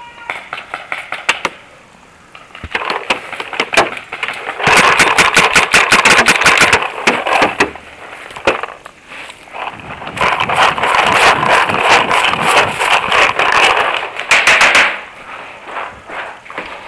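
Paintball markers firing in rapid bursts: a few scattered shots at first, then two long stretches of fast fire, about 5 to 8 seconds in and again about 10 to 15 seconds in.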